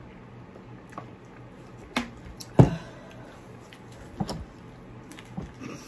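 Close-miked eating of a rice-and-chicken bowl topped with Fritos: a few sharp clicks and crunches, the loudest about two and a half seconds in.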